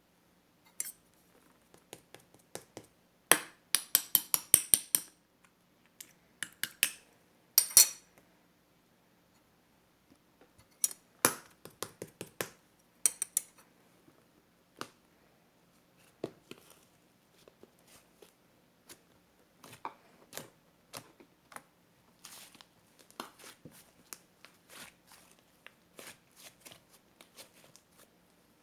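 Small hard objects being handled: irregular clicks and taps with a few short rattling flurries, the loudest about four and eight seconds in, then lighter scattered tapping.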